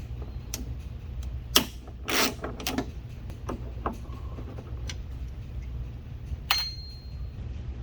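Irregular clicks and knocks of hand tools working on car-door hardware while bolts are being removed. A sharper metallic clink with a brief ring comes about six and a half seconds in, over a steady low hum.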